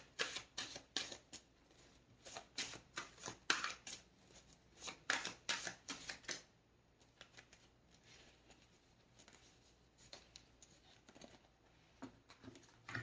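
A deck of tarot cards being shuffled by hand: a quick run of short papery strokes for about six seconds, then fainter, scattered card sounds.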